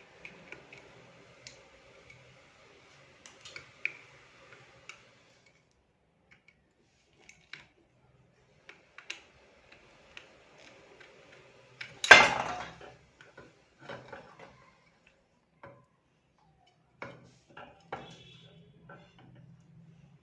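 Scattered metallic clicks and clinks of a table fan's motor parts and tools being handled as the motor housing is unbolted and opened, with one loud metal clatter about twelve seconds in.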